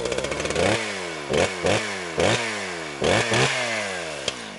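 A small gasoline engine revved in a series of quick throttle blips, about seven, its pitch jumping up and falling back after each.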